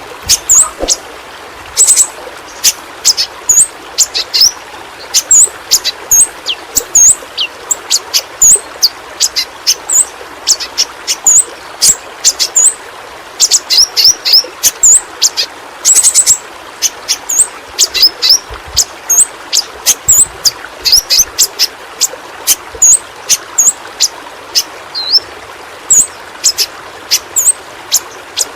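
Yellow-rumped flowerpecker (pentis pelangi) calling: many short, sharp, high-pitched chirps and ticks in quick, irregular runs. They sound over a steady background rush like running water.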